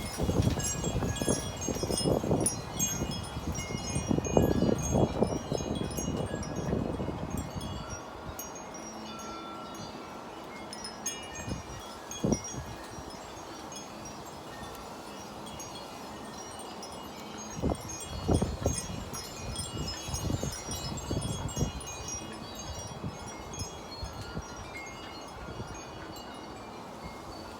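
Wind chimes ringing irregularly in a gusty wind, many short, high, overlapping tones. Wind gusts rumble on the microphone for the first several seconds and again past the middle.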